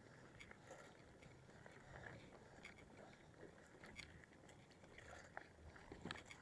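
Near silence with faint, irregular clicks and ticks, a few slightly louder near the end.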